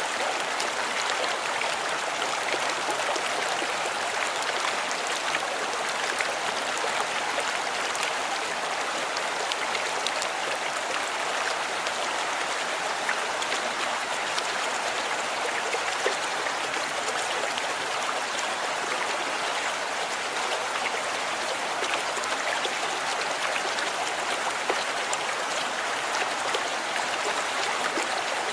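Turtle River's water flowing and splashing over small waterfalls, a steady rushing with fine splashes.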